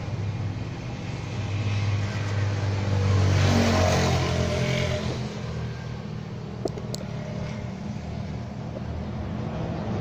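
A motor vehicle passing by: a low engine rumble that swells to its loudest three to four seconds in and then fades away. A couple of faint clicks come about seven seconds in.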